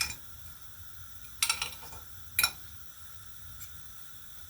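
A utensil clinking against a mixing dish: a few sharp taps, a quick pair about a second and a half in and another a second later, with a faint one near the end, as the egg-and-breadcrumb mix is finished off.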